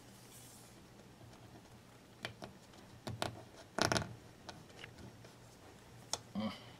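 Masking tape pulled from the roll in one short ripping burst about halfway through, among scattered light clicks and taps as strips are handled and pressed onto a glazed porcelain platter.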